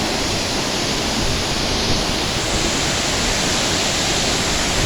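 Steady, loud rush of a large waterfall, water pouring and crashing onto the pool below.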